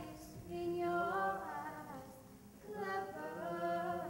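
Unaccompanied female singing: two phrases of held notes stepping in pitch, with a short break a little past halfway.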